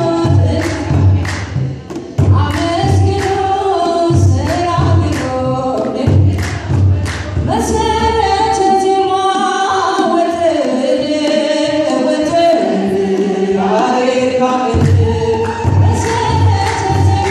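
Ethiopian Orthodox church hymn: a woman's lead voice and a choir singing, with two large kebero drums beating a steady rhythm. The drums drop out for several seconds in the middle, leaving held sung notes, and come back near the end.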